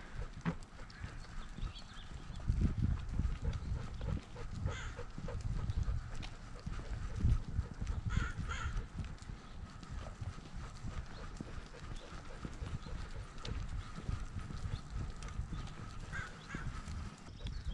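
Dull, uneven thuds of a dog running and bounding, picked up by a camera strapped to its body; the thudding is heaviest in the first half.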